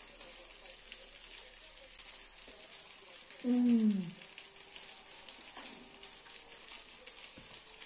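Macaroni and stewed meat frying in a pan, a steady sizzle and crackle. About three and a half seconds in, a woman gives a short hum that falls in pitch while eating.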